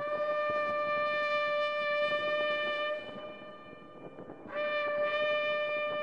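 Shofar blown in two long, steady blasts. The first scoops up into its note and is held about three seconds. After a short gap the second starts about four and a half seconds in and holds on.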